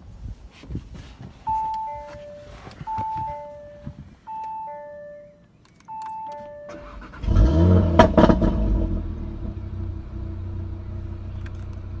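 A two-note cabin chime sounds four times, a higher note then a lower one each time. About seven seconds in, the Audi TT RS's 2.5-litre turbocharged five-cylinder engine starts through its performance exhaust with a loud flare of revs, then settles into a steady idle.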